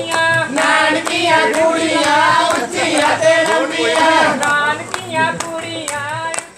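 A group of women singing a Punjabi folk song together, with hand clapping keeping the beat.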